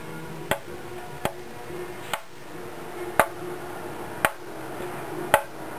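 Sharp knocks, six of them about a second apart, over a faint steady hum.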